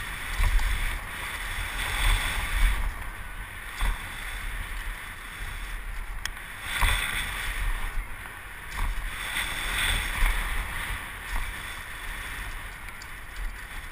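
Wind buffeting a helmet-mounted camera's microphone as a mountain bike rolls fast over a dirt jump trail, with tyre and rattle noise from the bike. Occasional sharp knocks come from bumps and landings, the clearest about six seconds in.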